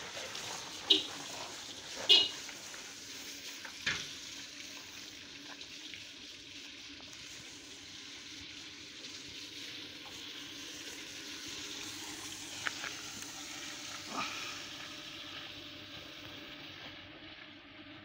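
Water jet from a hose spraying onto a JCB 3CX backhoe loader's tyres and bodywork: a steady hiss, with a few sharp knocks, the two loudest in the first couple of seconds.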